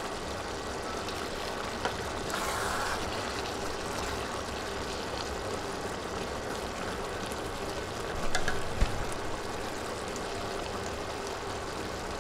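Thick beef and chana dal curry simmering in a steel pot, a steady bubbling hiss, while a wooden spatula stirs it, with a few soft scrapes and knocks against the pot.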